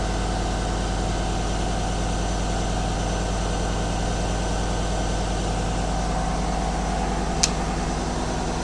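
Chevrolet Silverado pickup engine idling steadily and smoothly on a new serpentine belt, with no belt squeak: the squeal from the worn old belt is cured. A single short click about seven seconds in.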